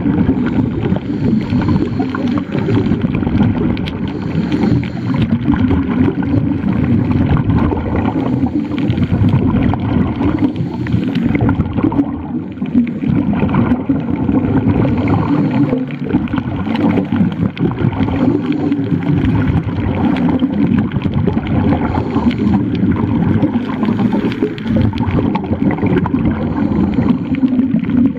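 Scuba regulator exhaust bubbles gurgling, heard underwater as a steady, muffled low rumble.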